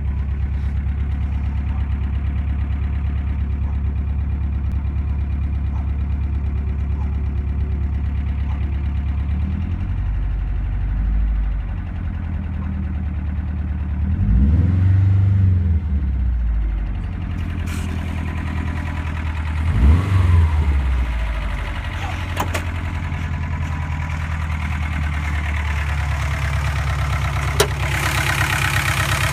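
Freshly rebuilt engine, about 20 miles on it with .0018 in main and rod bearing clearances and 5W-30 conventional oil, idling warm and making the noise that the owner calls bad and that appears once it warms up. It is revved up and back down twice around the middle.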